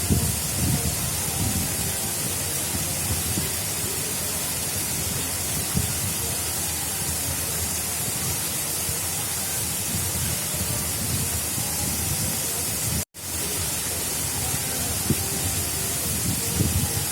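Water of an artificial river flowing steadily: a constant rushing with irregular low gurgles and splashes. The sound cuts out completely for an instant about thirteen seconds in.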